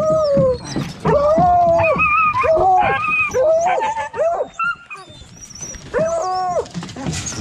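Deer hounds baying as they are turned out for a drive: a string of long, drawn-out cries that waver in pitch, with more than one dog crying at once in the middle. The cries break off briefly about two-thirds of the way through, then one more long cry follows.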